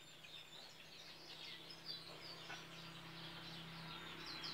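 Faint chirping of small birds, many short scattered calls, over a steady low hum.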